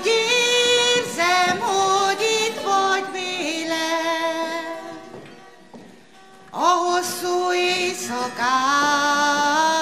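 A woman singing a slow song into a microphone, holding long notes with vibrato. The singing breaks off about five seconds in and a new phrase starts a little later.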